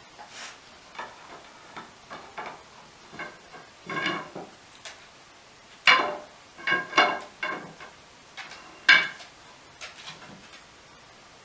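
Loose wooden banister spindles knocking and clattering against the stair rail and tread as a Scottish Terrier pushes them aside. There are several sharp, briefly ringing knocks, the loudest about six and nine seconds in, with small clicks and ticks between them.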